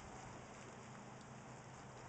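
Near silence: a faint steady hiss with a low hum, in a lull between gusts of wind on the microphone.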